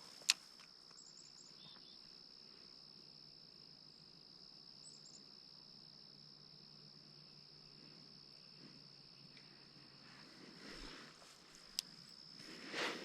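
Insects trilling steadily at one high pitch, with a sharp click just after the start and brief rustling near the end.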